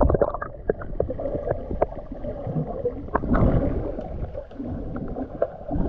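Muffled underwater sound of water moving around a swimmer, heard through a submerged camera: a low rumble with scattered bubble clicks and pops.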